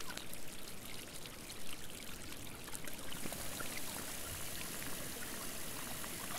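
Steady rushing-water ambience, like flowing or pouring water heard underwater, with scattered small clicks. A brighter hiss comes in about halfway through.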